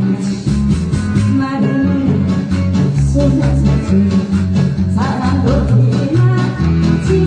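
Loud amplified song through a PA: a steady beat and bass line with a voice singing over it.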